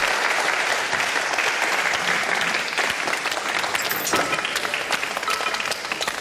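A group of people clapping, dense steady applause.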